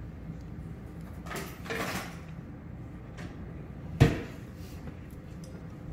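Kitchen handling noises: a brief scraping rustle a little over a second in, then a single sharp knock about four seconds in.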